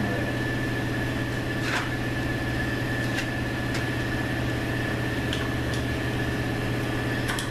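Steady mechanical hum with a thin high whine, and a few light metallic clicks as parts are handled inside a transmission case.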